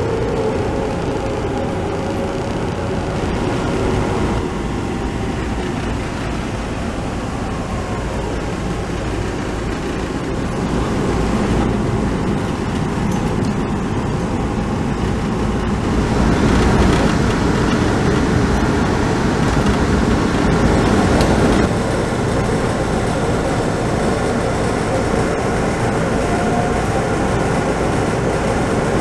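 Inside a Taoyuan Airport MRT train car under way: the steady rumble and hiss of the train running on its track. It gets louder for a few seconds past the middle and then drops back suddenly.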